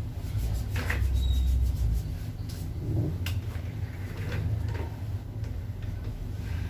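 A patient shifting on a padded chiropractic treatment table: a few short soft knocks and clicks, spread out, over a steady low rumble.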